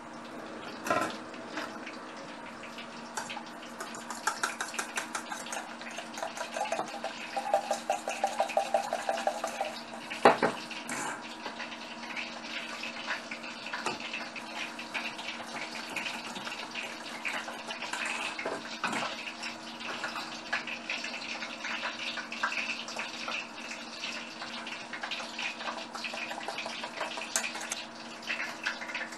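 Wire whisk beating eggs in a stainless steel bowl: rapid clinking and wet sloshing strokes, with one sharp knock about ten seconds in. A steady low hum runs underneath.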